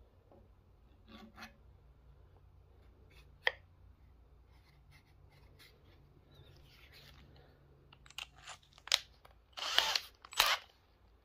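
Sanding-drum parts being handled: scattered light clicks and rubbing of a rubber drum and sandpaper sleeves, with a sharp click about three seconds in and a cluster of louder scrapes and clicks near the end. The drill is not running.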